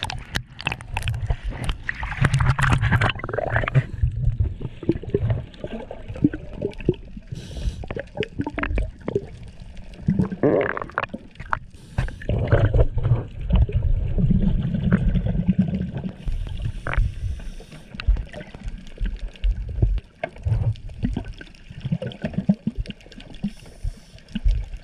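Water gurgling and sloshing around an underwater action camera at and below the sea surface, with irregular bubbling and crackling bursts and a deep, muffled rumble in stretches.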